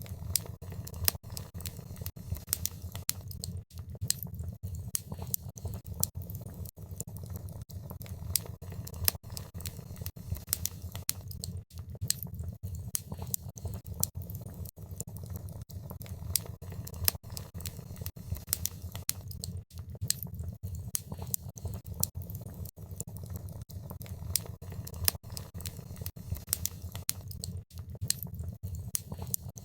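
Wood fire crackling in a fireplace: dense, irregular pops and snaps over a steady low rumble of the flames.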